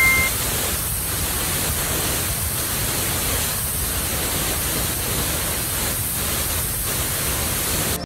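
A heavy, fast-flowing waterfall pouring into a pool: a steady, even rush of water noise that cuts off suddenly at the end.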